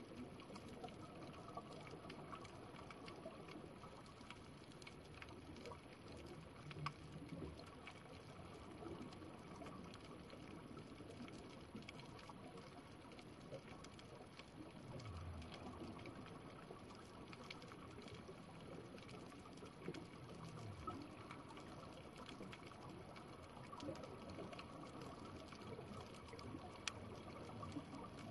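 Faint underwater reef ambience: a steady wash of water noise scattered with many small faint clicks.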